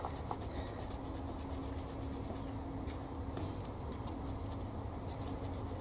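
Sanding small plastic model-kit parts by hand: quick, even back-and-forth rubbing strokes, several a second.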